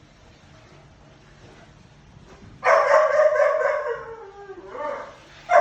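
A dog barking and whining: a loud run of vocalising starts about two and a half seconds in and lasts about two seconds, dropping slightly in pitch at its end, and a second bout begins near the end.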